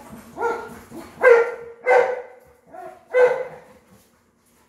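A dog barking: four sharp barks over about three seconds, with a couple of softer yips between them.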